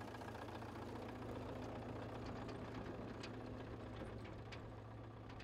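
Faint steady low mechanical hum, with a few faint ticks in the second half.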